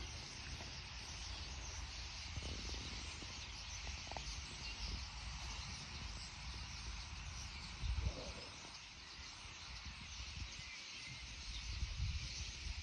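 Distant mass chatter of a large flock of common starlings, heard as a steady high hiss of overlapping calls, with wind buffeting the microphone about eight seconds in and again near the end.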